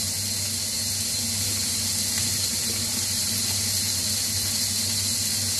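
Broccoli florets sizzling in a heavy grill pan on high heat: a steady hiss, with a low steady hum underneath.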